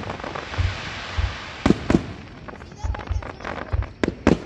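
Aerial fireworks bursting overhead: a crackling hiss from glitter shells over the first two seconds, deep thumps, and sharp bangs, two a little before halfway and two more near the end.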